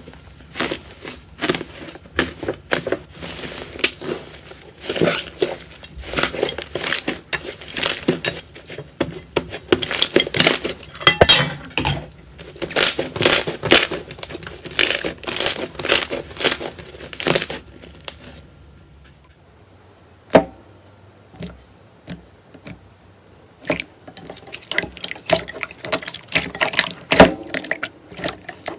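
Slime being squished and worked, giving rapid crackling and popping clicks. The clicks thin out to a few pops for several seconds in the second half, then pick up again near the end.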